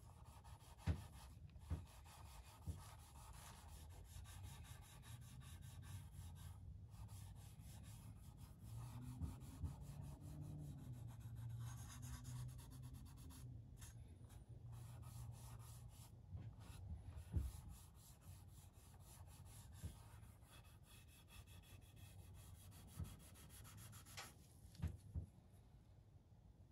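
Faint rubbing of a cloth pad wiping pigment-tinted Tru-Oil into the bare wood of a Stratocaster body, with a few light taps scattered through it.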